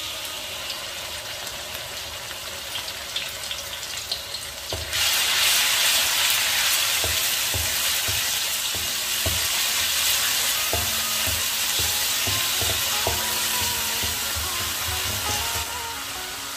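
Shallots and ginger-garlic paste sizzling in hot oil in a metal wok, with a wooden spatula stirring and knocking against the pan. The sizzle gets much louder about five seconds in and eases off near the end.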